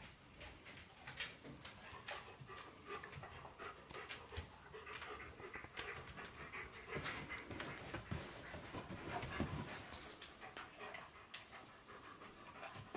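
A dog panting softly, with scattered light clicks through it.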